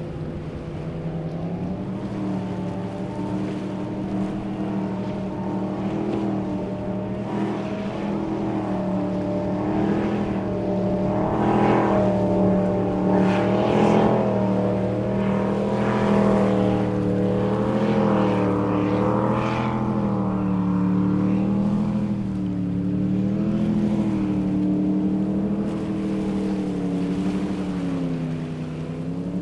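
Offshore go-fast powerboat engines running at speed, their pitch wavering up and down as the hull rides over the waves. The sound swells louder through the middle, with the hiss and slap of the hull and spray on the water, and fades slightly near the end as the boat heads away.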